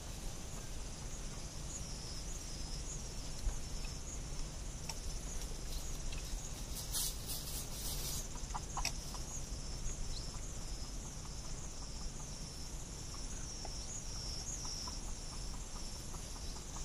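Insects trilling in a steady high drone that pulses about twice a second, with a few soft clucks from a red junglefowl rooster scratching in dry leaves and a brief scratchy rustle about seven seconds in.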